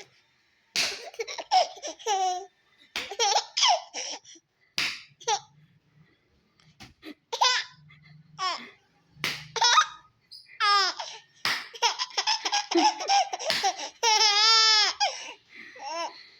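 A young child laughing hard in repeated high-pitched bursts with short pauses between them, then a longer wavering laugh near the end.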